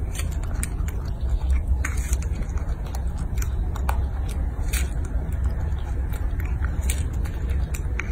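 A baby monkey biting and chewing fresh strawberries: many short wet clicks and smacks, irregularly spaced, over a steady low rumble.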